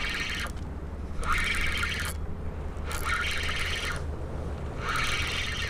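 A fishing reel cranked in three spurts with short pauses between them, a fine ticking whir each time, as a hooked fish is reeled in. A steady low rumble runs underneath.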